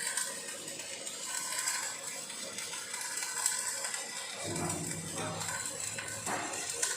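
Background music with steady sustained tones.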